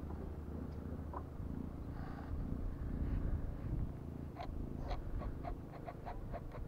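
A steady low rumble with a run of light, evenly spaced clicks, about three a second, starting a little past the middle.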